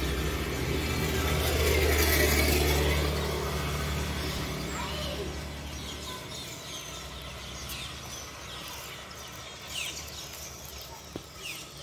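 A motor vehicle's engine passing on the road, growing to its loudest about two seconds in and then fading away. Birds chirp through the second half.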